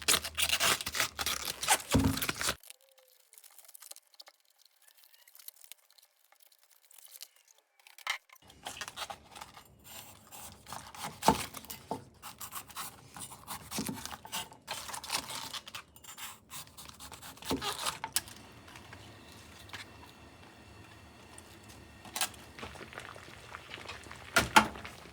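Cabbage leaves being handled and pulled apart in the kitchen: crinkling and tearing with several sharp knocks. There is a pause of near silence a few seconds in.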